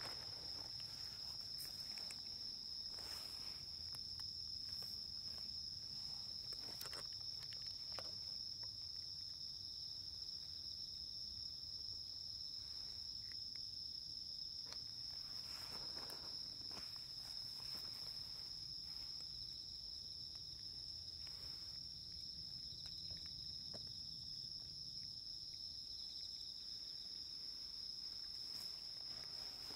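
Crickets singing in a steady, high-pitched chorus, with scattered soft clicks and rustles.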